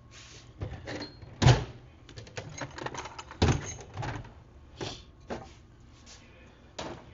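A small hammer tapping and knocking at a stuck part on a dirt bike footrest to drive it out, in irregular blows, two of them much harder than the rest.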